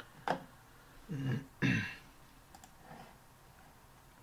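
A man making short wordless vocal sounds, three of them in the first two seconds.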